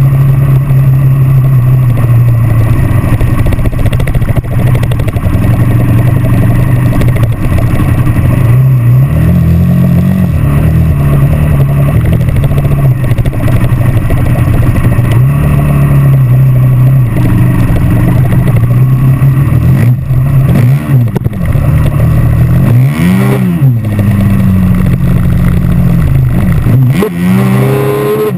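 Dirt bike engine running at a steady pitch under even throttle, then revving up and dropping back several times near the end.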